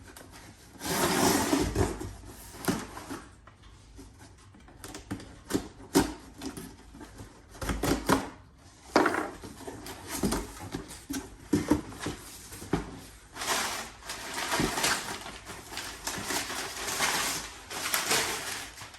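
A cardboard shipping box being opened by hand, with packing paper rustling and crinkling and irregular knocks and clicks as the flaps and contents are handled.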